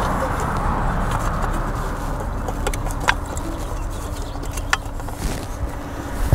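Steady low rumbling background noise, with a few light clicks from wires and terminal screws being handled at a pump control box.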